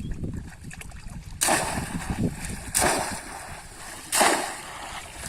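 Three loud splashes in shallow water, about one every second and a half, fitting a bamboo polo trap being plunged down into the pond.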